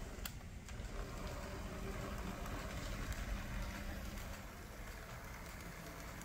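Märklin Z-scale BR 212 diesel locomotive model running along the track: the small electric motor and wheels on the rails make a steady running noise, easing off a little in the second half. A single sharp click comes about a quarter second in.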